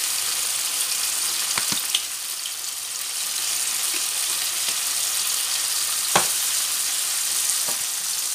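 Diced peppers and tomatoes sizzling steadily in a frying pan with a little added water, with a few sharp knocks, the loudest about six seconds in.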